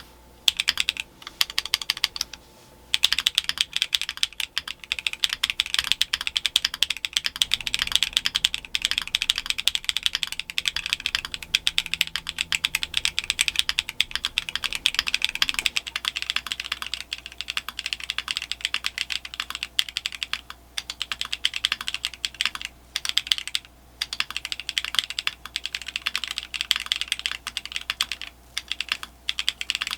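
Typing sound test on an Akko ACR Pro 75 mechanical keyboard with PBT DSA-profile keycaps and pre-lubed stabilizers: rapid, continuous keystrokes with a few brief pauses.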